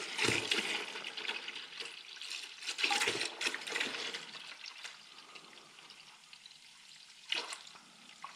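Green antifreeze pouring in a steady stream from the engine-block drain plug of a 1943 John Deere Model B into a plastic bucket, splashing into the foaming coolant already in it. The pouring is louder for the first few seconds and softer after, with one short louder noise about seven seconds in.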